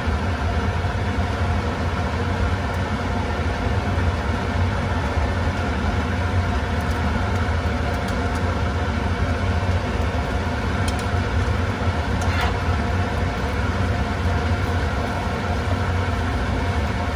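Spaetzle frying in hot garlic butter and oil, a steady sizzle over a constant low hum, with a few faint clicks of metal tongs against the pot.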